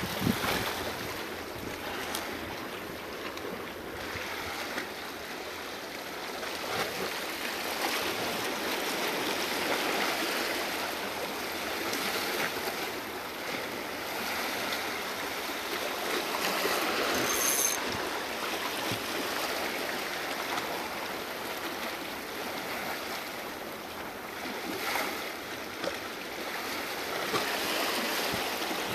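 Small waves washing and splashing over low rocks at the water's edge, swelling and easing every few seconds.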